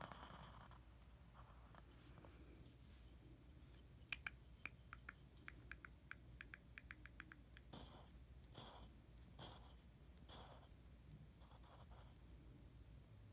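Faint pencil strokes scratching on paper, in short separate strokes, with a quick run of light ticks about four seconds in.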